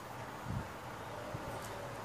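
Quiet room hiss, with one faint soft bump about half a second in and a faint tick later.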